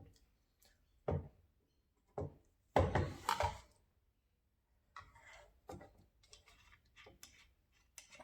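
Handling noise from a handheld phone gimbal and its parts: a few separate knocks and thunks, a louder cluster of knocks about three seconds in, then softer clicks and rustling.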